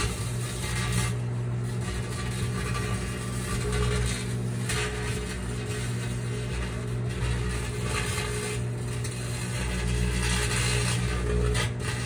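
Microwave oven running with a steady low electrical hum while a wire mesh cage inside arcs, with irregular crackling, buzzing surges as the sparks flare.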